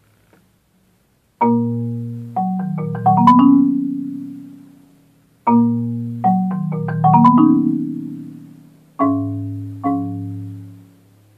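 Solo marimba played with four yarn mallets: after a short pause, phrases of struck chords and quick runs of notes, each over a deep low note, ringing and fading away. Near the end two single chords are struck a second apart and ring out.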